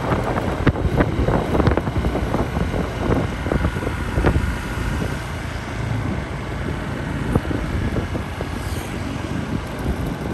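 Wind buffeting the microphone of a moving motorbike, with the bike's engine running underneath in a steady rumble.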